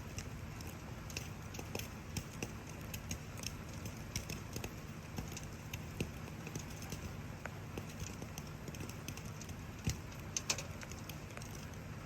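Wood campfire crackling, with frequent sharp pops and snaps, two louder ones about ten seconds in, over a steady low background rumble of rain.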